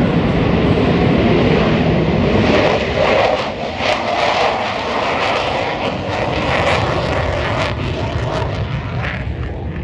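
F-35 fighter jet's single jet engine at takeoff power as it lifts off and climbs away. Its deep roar gives way, about two and a half seconds in, to a loud, ragged crackle that eases near the end.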